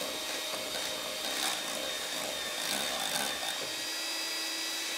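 Electric hand mixer running with a steady whine, its beaters whipping very cold cream in a stainless steel bowl. The cream has not yet broken into butter.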